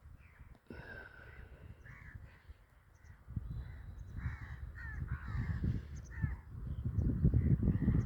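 Crows cawing repeatedly. A low rumble comes in about three seconds in and grows louder toward the end.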